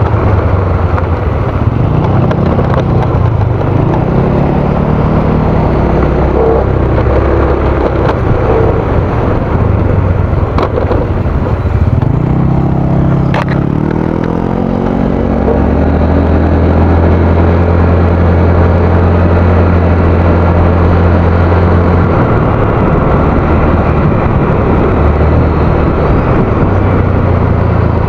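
Motor scooter engine running while riding, with heavy wind noise on the microphone. The engine note rises and falls with the throttle, climbs about halfway through, then holds steady for several seconds.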